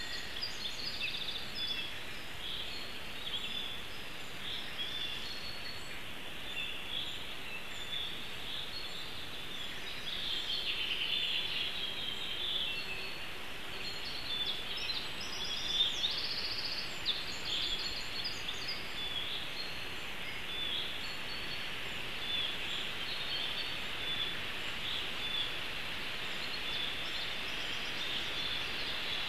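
Small forest songbirds singing in the background, many short high chirps and trills, over a steady hiss.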